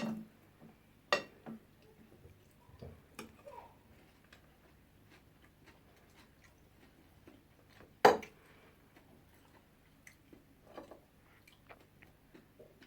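Cutlery clinking and tapping against plates, with quiet chewing between the clinks; a sharp clink about eight seconds in is the loudest.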